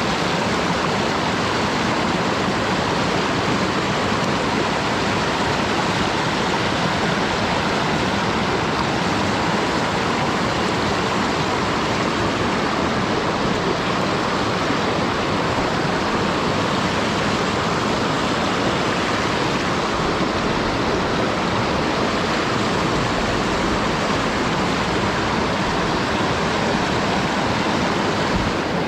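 Mountain stream water rushing, a loud, steady, unbroken rush.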